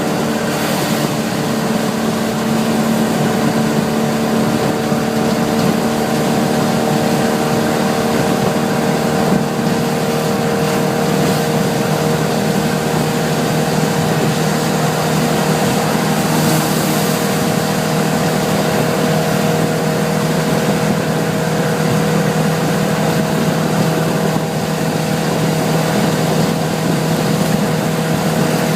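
Suzuki LJ80's 800 cc four-cylinder engine running at a steady cruise with a constant drone, under an even hiss of rain, wind and road noise.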